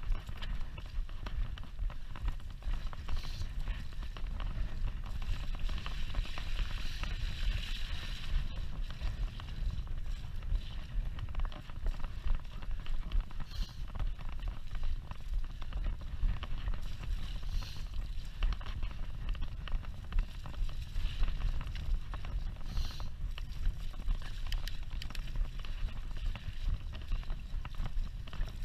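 Mountain bike riding over a rough, muddy track: wind rumbling on the microphone, with frequent knocks and rattles from the bike over the bumps and a stretch of hissing tyre noise a few seconds in.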